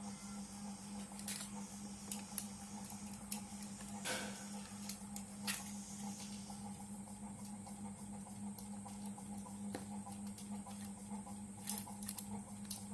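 A steady low hum with a few light clicks and taps scattered through.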